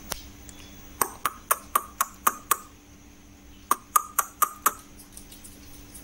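Two quick runs of sharp taps with a short ringing tone, about five a second: seven taps, then a pause, then five more.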